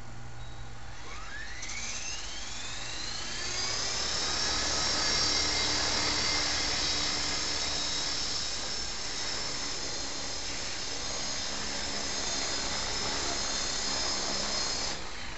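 Electric 450-size RC helicopter (a 450 Pro clone) spooling up: the motor and rotor whine climbs in pitch for a few seconds, then holds as a steady high whine while it hovers. The whine cuts off abruptly near the end.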